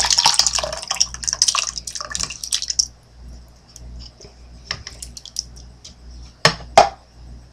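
Canned soup pouring out of a metal can into a plastic cup for about three seconds, then a few light clicks and two sharp knocks near the end.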